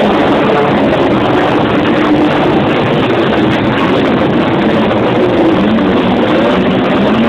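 Several wingless sprint cars racing on a dirt speedway track, their engines loud and overlapping, in pitch rising and falling as the drivers get on and off the throttle.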